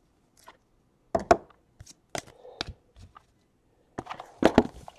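Scattered light clicks and knocks of hands handling a framed trading card and card boxes, with a quick cluster of knocks near the end.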